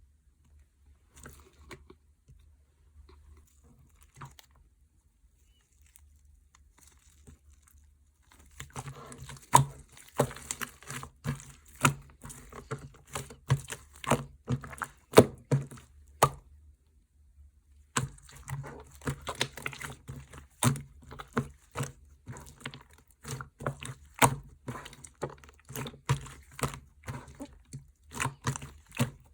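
Slime being squeezed and pressed by hand, giving rapid wet clicks and pops. It starts as faint, scattered handling, turns into dense popping about eight seconds in, breaks off briefly past the middle, then picks up again.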